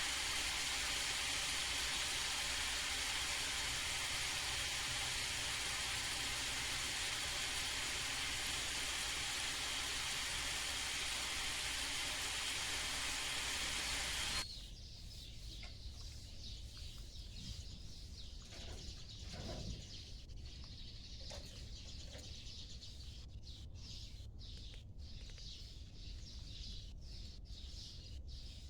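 A loud, steady hiss that cuts off suddenly about halfway through, followed by quieter outdoor ambience with short bird chirps.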